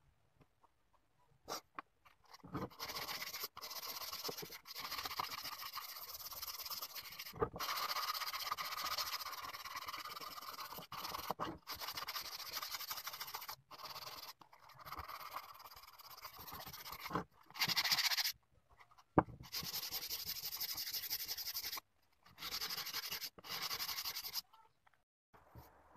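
Hand sanding of a wooden ashtray with sandpaper: a scratchy rubbing that comes in several stretches, each starting and stopping abruptly.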